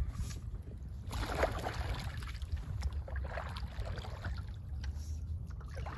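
Paddle strokes in pond water from a small plastic boat: the blade dips and sloshes about every two seconds, over a steady low rumble.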